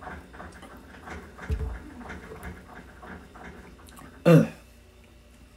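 A person drinking from a plastic soda bottle. There is a low thump about a second and a half in. About four seconds in, after the sip, comes a short, loud vocal exclamation like an 'ahh', falling in pitch.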